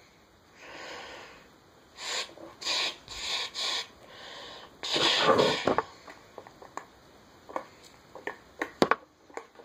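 Paracord being handled and braided: a series of short rubbing, rustling swishes, the loudest about five seconds in, then a run of small clicks and taps as the cord is worked.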